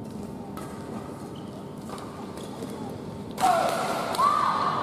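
A badminton rally with faint shuttlecock hits over steady hall ambience. About three and a half seconds in, loud voices suddenly shout as the rally ends and the point is won.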